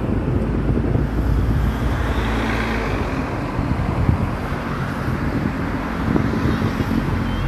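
Steady, loud outdoor rumble: wind buffeting the microphone and a low drone, with no distinct single event.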